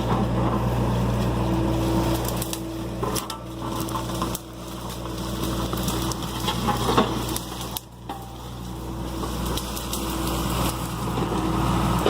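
John Deere excavator's diesel engine running steadily while the machine works, with a higher whine that comes and goes and scattered knocks and crunching from the work.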